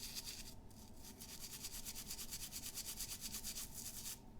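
Quick, even back-and-forth scrubbing of a diecast metal model car body with Brasso metal polish, briefly pausing about half a second in and again near the end.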